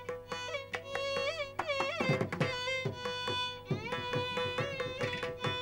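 Instrumental background music in a Carnatic style: a gliding, ornamented melody over a held drone note, with hand-drum strokes.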